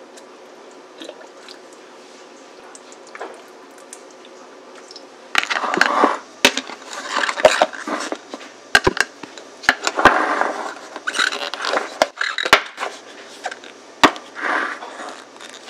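A few faint ticks of a ladle in a cast-iron pot. Then, from about five seconds in, a busy run of clatter and sharp clicks as plastic food-storage containers are handled and their lids pressed on.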